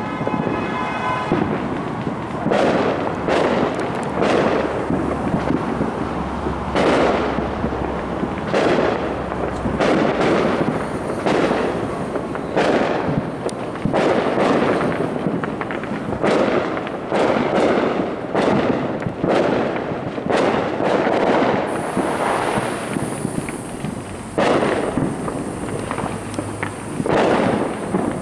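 Fireworks going off in a continuous barrage: sharp bangs about once or twice a second over steady crackling.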